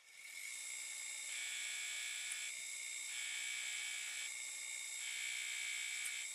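Acraturn metal lathe running with a steady high whine, taking light cuts on the corners of a square chuck-key blank. A rasp comes and goes about every second.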